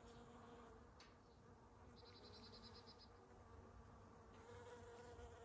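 Bees buzzing faintly as they forage among blossoms, a low steady hum that fades about a second in and comes back near the end.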